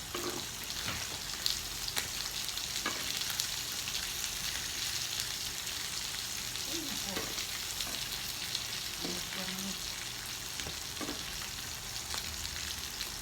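Meat sizzling steadily in a hot pan, with a few sharp clicks in the first few seconds.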